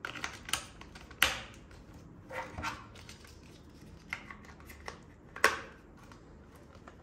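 Hard plastic clicks, snaps and short rattles as batteries are pressed into a toy robot's plastic battery compartment and its battery cover is fitted and snapped shut. The sharpest snaps come about a second in and again near the end.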